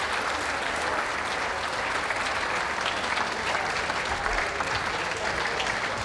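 Audience applauding: many people clapping steadily throughout.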